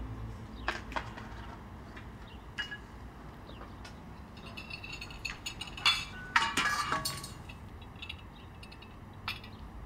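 Dishes and glassware clinking and tapping as a breakfast table is set: scattered clinks, with a denser run of them about six to seven seconds in.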